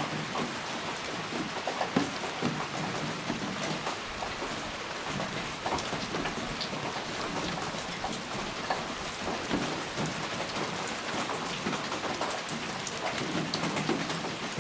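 Steady rain falling, with many individual raindrops ticking sharply on a surface against a constant wash of rainfall.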